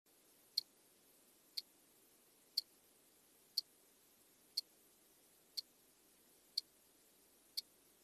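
A clock ticking: eight sharp ticks, one each second, over a faint hiss.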